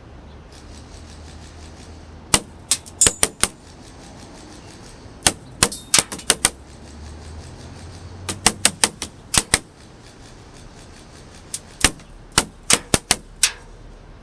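Tokyo Marui next-generation electric Recce Rifle airsoft gun firing 0.28 g BBs in quick semi-automatic strings: four strings of about six or seven sharp shots each, a few seconds apart.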